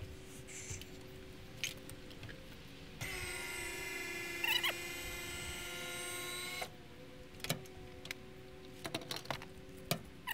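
Electric motor of a motorcycle lift platform running steadily for about three and a half seconds, a whine that starts and stops abruptly, while it moves the loaded platform. Scattered clicks and knocks come before and after it.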